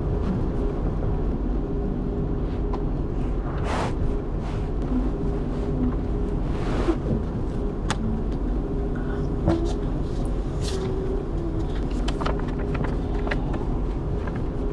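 Steady low rumble of a moving car heard from inside the cabin, with two brief swishes and a scatter of small clicks and rustles from things being handled, mostly in the second half.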